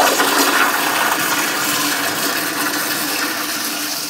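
Zurn wall-mount toilet flushing through its flushometer valve: a loud rush of water that fades slowly, with a steady low tone running under it.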